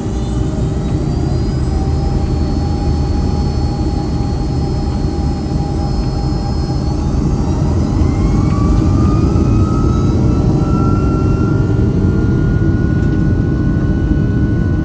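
Boeing 757's Rolls-Royce RB211-535E4B turbofan engines spooling up, heard inside the cabin: several whining tones climb in pitch and level off near the end over a heavy, steady rumble, which grows a little louder about two thirds of the way in.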